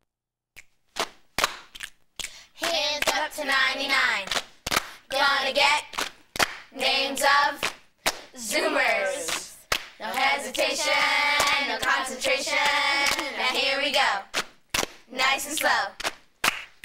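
Children clapping their hands in a steady rhythm, starting about half a second in, with children's voices singing along over most of it.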